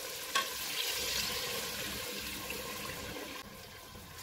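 A cup of water poured from a glass into an aluminium pressure cooker of hot chicken curry: a short knock about half a second in, then a steady splashing rush that fades out about three and a half seconds in.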